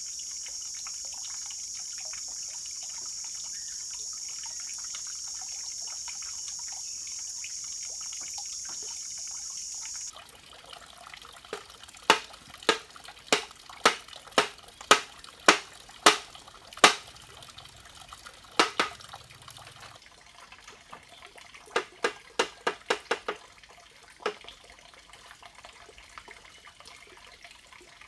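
Steady high buzz of insects for the first third. Then, after a cut, about ten sharp, evenly spaced knocks, roughly one every half second to second, as timber is hammered into the roof frame, and later a quicker run of about six knocks.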